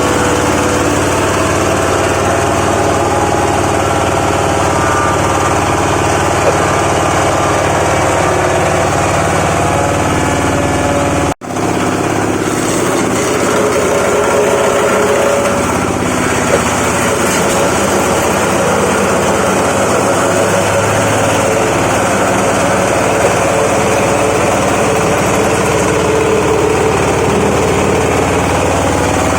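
Wood-grinding hammer mill for pallet waste running loud and steady, engine and rotor noise with several held tones. The sound drops out for an instant about eleven seconds in.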